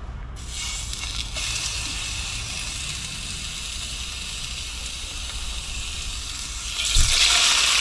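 Raw gammon steaks sizzling in a hot Trangia frying pan over an alcohol burner. The hiss starts about half a second in as the first steak goes in, and near the end a second steak drops in with a soft thud and the sizzling gets much louder.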